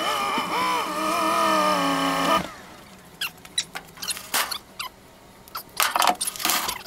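A high, wavering squeaky sound for about two and a half seconds that cuts off suddenly. It is followed by scattered clicks and knocks at a pickup's rear hitch while a trailer's lighting plug is being connected, the loudest cluster near the end.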